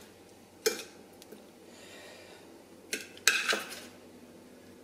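Metal utensil clinking and scraping against ceramic plates as sliced chicken is moved onto a bowl of pasta: one sharp clink under a second in, then a cluster of clinks around three seconds.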